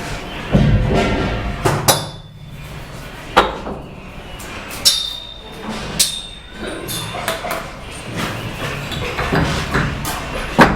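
Bricklaying: a steel trowel tapping cement bricks down into the mortar and scraping mortar, with a low thud just after the start and several sharp ringing clinks spaced one to two seconds apart.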